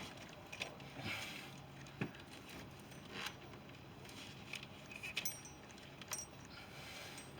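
Scattered light metallic clicks and clinks, some with a brief ring, as a 5/8-inch fuel line disconnect tool is worked against a stuck fuel line fitting on the fuel rail.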